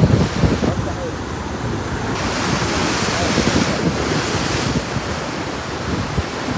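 Sea waves breaking and washing in, a hiss that swells about two seconds in and eases off near five seconds, with wind buffeting the microphone.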